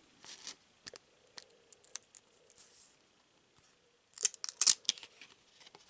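A stack of trading cards handled by hand, cards slid and flicked off the top one after another: scattered light clicks and rustles of card stock, with a cluster of sharper snaps about four seconds in.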